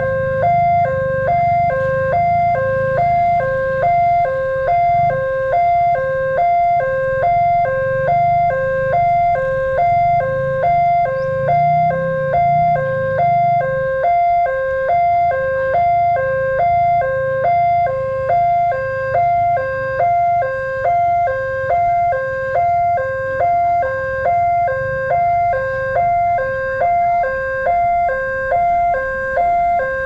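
Electronic warning siren of a railway level crossing sounding from its horn loudspeaker: two tones alternating high and low, about one cycle a second, warning of an approaching train. A low rumble runs beneath it and eases about halfway through.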